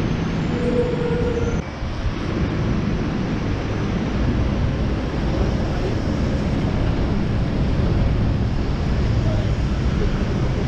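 Steady low rumble of city street traffic, with a brief steady tone about half a second in.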